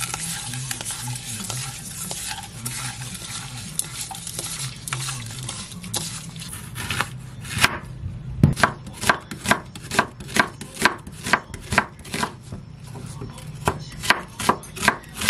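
Raw oysters being rubbed by hand with coarse salt in a ceramic bowl, a gritty scrubbing. About halfway through, a kitchen knife starts slicing an onion on a wooden cutting board, about two chops a second with a brief pause.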